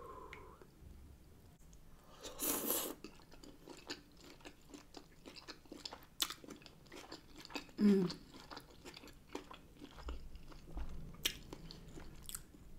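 Close-up eating sounds of a person chewing and biting smoked sausage: a stream of small wet mouth clicks, with a louder bite about two and a half seconds in and a brief low hum of the voice near eight seconds.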